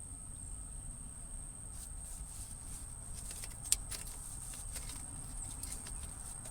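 Light clicks and taps of hand work on metal and plastic parts, sharpest a little past halfway, over a steady high-pitched whine.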